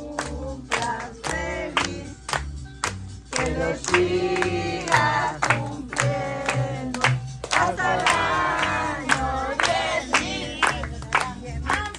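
Upbeat party music with a strong steady beat, about two a second, and a singing voice, with people clapping along.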